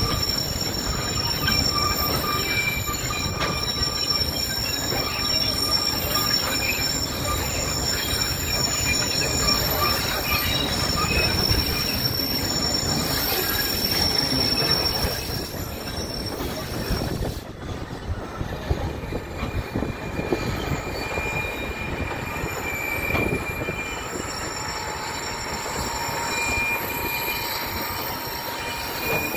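Narrow-gauge tourist train on the move: steel wheels squealing thinly against the rails over the steady rumble of the cars rolling along the track, heard from aboard an open-air passenger car. The noise eases somewhat a little past halfway.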